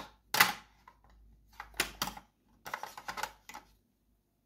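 Hard plastic puzzle pieces clicking and clacking as they are handled and set down. There is a sharp clack at the start and another about half a second in, then two runs of lighter, quick clicks.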